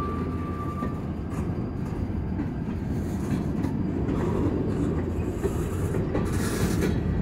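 Freight train's covered hopper cars rolling past close by: a steady low rumble of steel wheels on rail with scattered clicks over the rail joints. A thin high squeal stops about a second in, and there is a brief hiss near the end.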